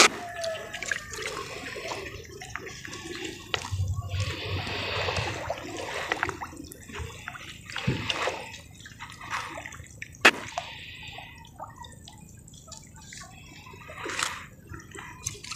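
Shallow lake water sloshing and splashing as a person wades and reaches into it, irregular, with a few sharper splashes.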